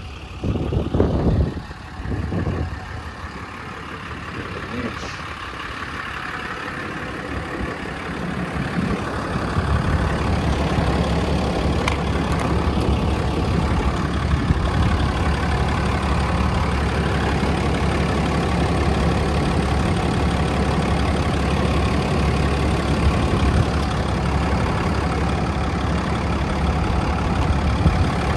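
A few knocks near the start, then a diesel engine idling steadily, growing louder about eight to ten seconds in and holding steady after that: the service truck's 6.7 Cummins turbo-diesel.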